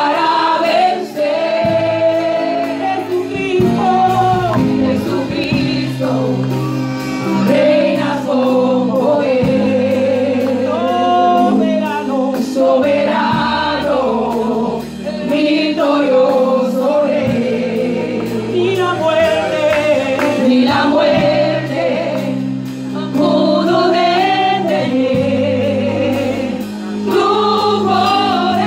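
Gospel singing amplified through a church sound system: a woman sings lead into a microphone with the choir joining in, over steady sustained low instrumental chords.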